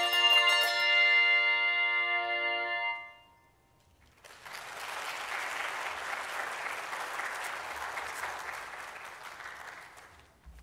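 Handbell choir's final chord ringing and dying away over about three seconds. After a moment's pause, an audience applauds for about six seconds.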